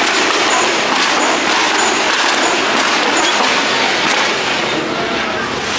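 Busy street noise at a large outdoor gathering: a crowd chattering while motorcycles ride past.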